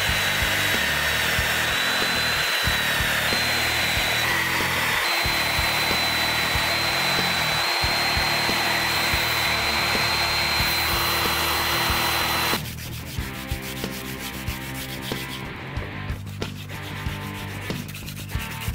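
Belt sander mounted upside down and running, its abrasive belt grinding the wooden handle of a steel cleaver with a steady hiss and a high whine. About twelve seconds in the sander stops, and quieter rubbing strokes of hand sanding continue over background music.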